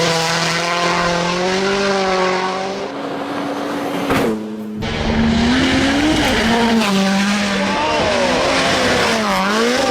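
Rally car engine driven hard, its note climbing and dropping through gear changes and throttle lifts. About four seconds in the sound briefly falls away before the engine comes back on full power, with quick revving dips near the end.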